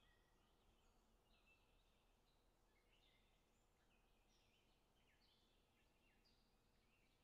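Near silence with very faint birdsong: short repeated high chirps and brief downward-sliding notes throughout.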